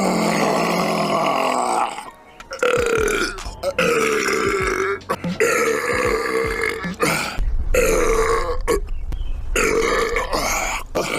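A man's loud, drawn-out burps, one after another: about five long belches, each one to two seconds, with short breaks between them.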